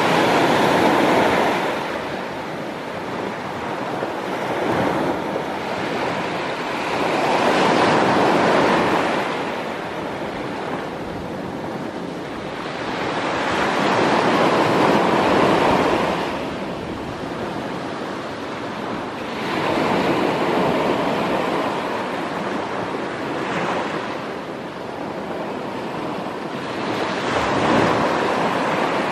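Small sea waves breaking and washing up a sand-and-pebble beach, the surf swelling and falling back about every six or seven seconds.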